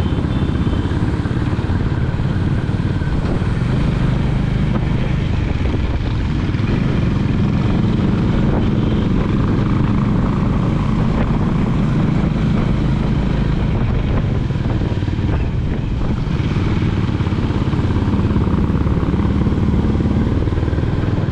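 Honda motorcycle engine running steadily as it is ridden at an even cruising speed, heard from the rider's seat.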